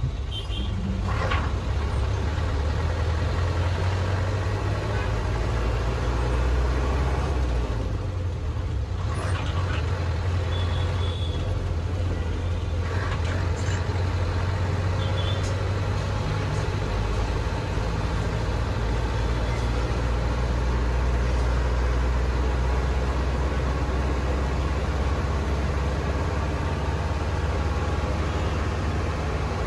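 Steady low rumble of vehicle noise, with a few short high-pitched tones scattered through it.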